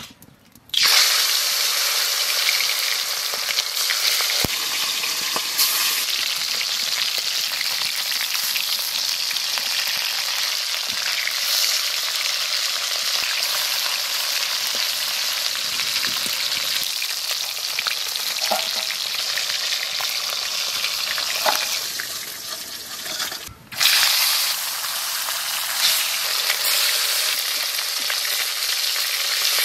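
Pieces of snakehead fish frying in hot mustard oil in an aluminium kadai: a steady sizzle that starts about a second in and briefly drops out near the end. Now and then a metal spatula turns the pieces.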